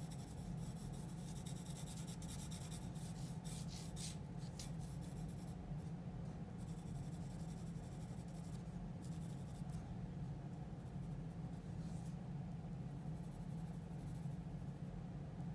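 Graphite pencil scratching on drawing paper in quick sketchy strokes, coming in spells with short pauses between them.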